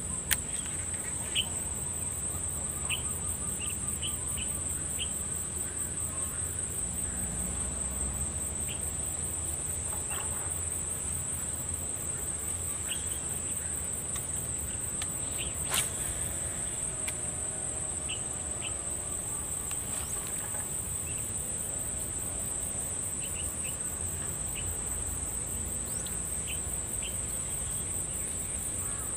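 Insects trilling steadily in a high, fast-pulsing drone, with scattered faint short ticks and one sharp click about halfway through.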